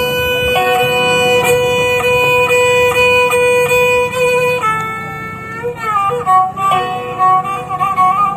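Tarawangsa, the Sundanese bowed fiddle, holding a long steady note, then dropping to a lower, wavering melody about five seconds in. Plucked strings strike a steady pulse alongside it.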